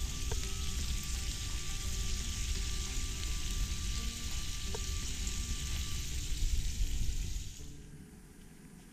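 Squid and fish sizzling steadily in a cast-iron skillet on a gas camp stove; the sizzle cuts off near the end.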